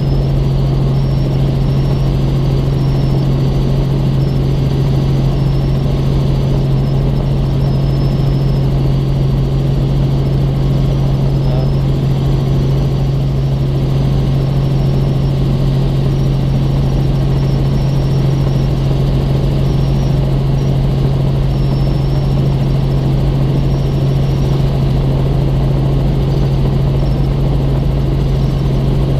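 Robinson R44 Raven II helicopter's six-cylinder Lycoming engine and rotors running steadily: an unbroken drone with a strong low hum.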